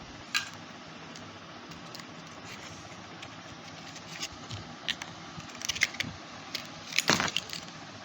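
Small clicks and crackles of plastic packaging being handled as a desktop CPU is unpacked, over a steady background hiss. The clicks come sparsely at first, bunch up about six seconds in, and a longer rustle follows about seven seconds in.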